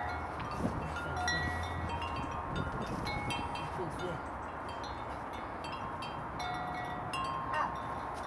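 Wind chime ringing in the breeze: several different notes struck at random moments, each ringing on briefly, with no regular rhythm.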